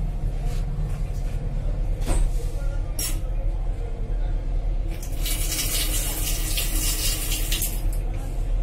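Water running from a washbasin tap into a stainless steel sink for about three seconds, starting about five seconds in, over the steady low rumble of the moving train coach. A couple of sharp clicks come shortly before.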